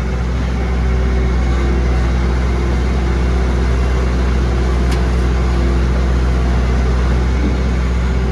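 An engine running steadily at an even speed, with a faint click about five seconds in.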